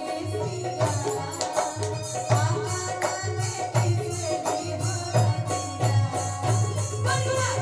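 Music with a steady strong bass beat, percussion strokes and a melody over it.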